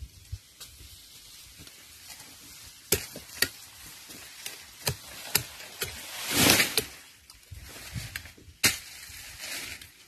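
Corn stalks and leaves rustling, with several sharp snapping cracks as the plants are worked through by hand during a corn harvest. The loudest rustle comes about six and a half seconds in.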